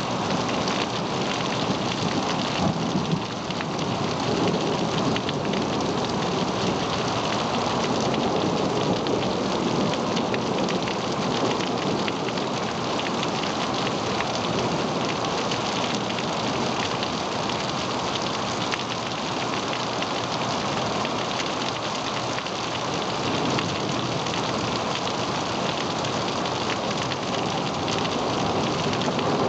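Thunderstorm: steady rain hissing without a break, with rolling thunder rumbling under it at times.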